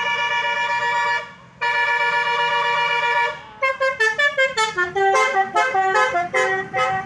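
Indonesian bus telolet horn: two long steady blasts, then from about halfway a quick run of short notes stepping up and down in pitch, the tune the horn is known for.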